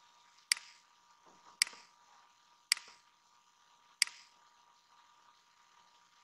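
Computer mouse button clicked four times, about a second apart, each a short sharp click. A faint steady high hum runs underneath.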